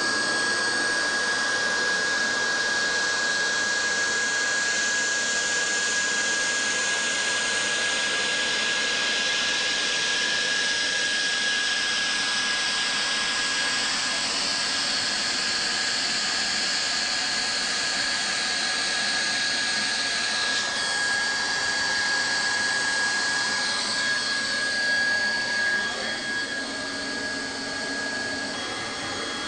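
Hot-air plastic welding gun running steadily: a blower hiss with a steady high whine. The hiss changes a little in the last third.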